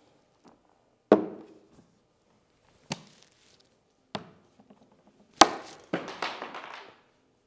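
Toiletry bottles and containers knocking down one by one on a tabletop as they are set out: about five separate clacks, the loudest a little past halfway, followed by a short rustle.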